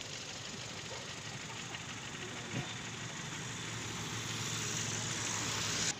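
Road traffic running past, with a faint low engine hum under it. A vehicle grows louder over the last two seconds and then cuts off suddenly. A single knock sounds about halfway through.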